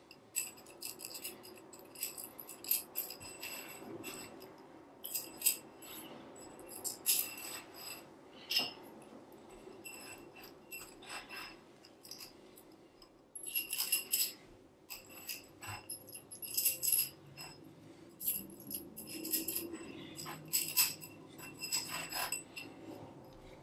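Metal tubes of a tensegrity model clinking and knocking against one another as they are handled, with light clicks from the cord links' metal ends, in irregular clusters. Some knocks leave a short ringing tone from the tubes.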